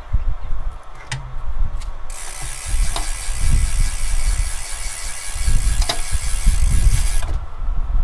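Uneven low rumble, like wind buffeting the microphone, throughout. A steady high hiss starts abruptly about two seconds in and cuts off sharply about five seconds later, with a few sharp clicks in between.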